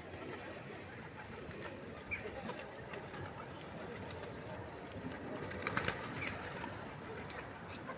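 Pigeons cooing in low, rumbling calls, with a short burst of sharp clicks or taps about six seconds in.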